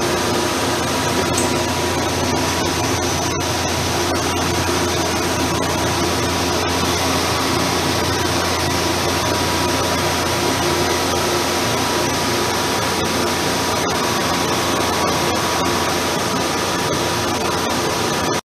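Steady hiss and hum of running machinery, with a constant thin whine and a low drone, unchanging until it cuts off suddenly near the end.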